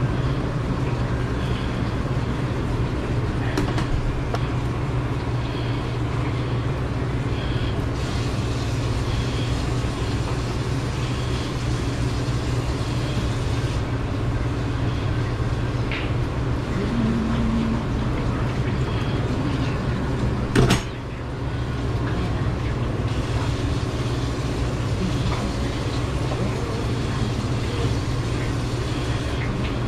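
A steady low mechanical hum, with a single sharp knock about two-thirds of the way through.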